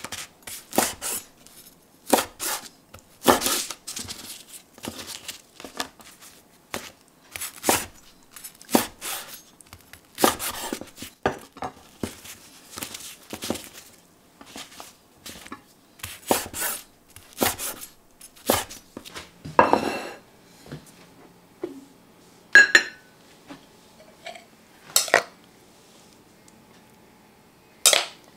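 Irregular taps and soft knocks on a wooden cutting board as cooked pancakes are picked up, set down and stacked. These are followed by a few sparser ringing clinks of ceramic dishes.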